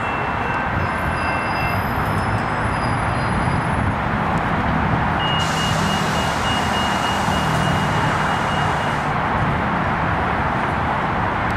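Coaster commuter train rolling past on curving track, pushed by its EMD F40PH diesel locomotive at the rear: a steady rumble of the working diesel and the wheels on the rails. A thin high tone sounds from about five to nine seconds in.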